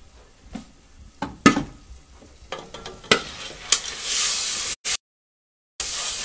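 Corn kernels toasting in a hot pot, popping and crackling with sharp separate pops. About four seconds in, as the lid comes off, a steady loud sizzle of frying takes over. The sound cuts out for about a second before the sizzle resumes.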